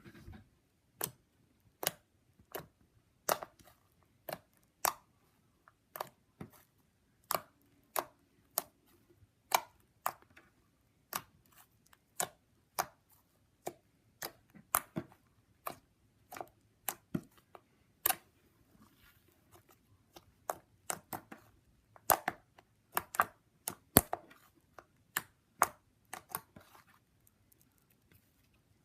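Set avalanche slime being poked and mixed by hand, making irregular sharp clicks and pops, about one to three a second.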